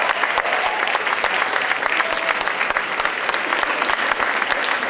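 A large crowd applauding, dense steady clapping of many hands that holds level throughout.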